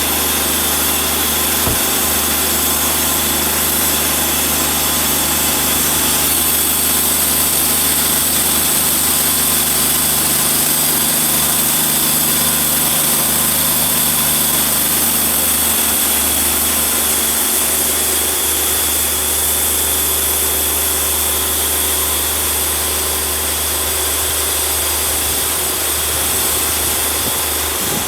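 Gas engine of a Wood-Mizer portable band sawmill running steadily at speed.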